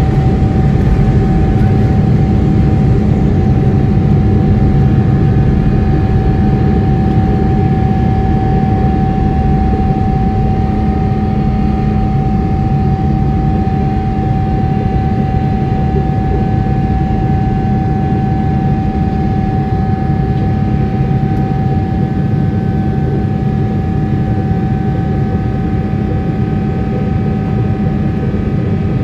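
Jet airliner cabin noise from a Boeing 777-300ER in flight: the steady rush and rumble of the GE90 engines and airflow, with a steady whine over it.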